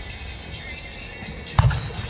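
An aerial firework shell bursts with one sharp bang about one and a half seconds in, followed by a short low boom.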